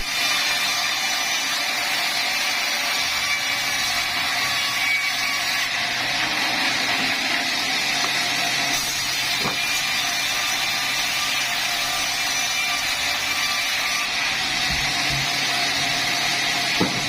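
Sawmill saw running steadily through wood, a continuous machine whine with a few faint knocks.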